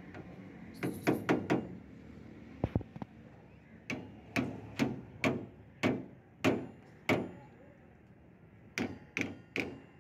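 Hand hammer striking metal at the hub of a rickshaw's rear wheel, working on the broken hub. The blows are sharp and ringing: a quick group of four about a second in, a pair, a steady run of seven about half a second apart, then three more near the end.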